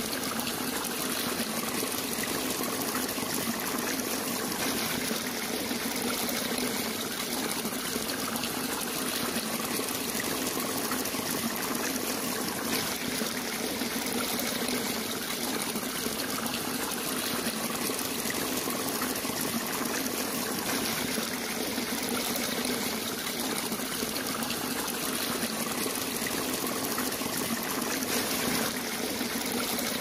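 Shallow water trickling and flowing steadily, an even rushing hiss with no distinct splashes.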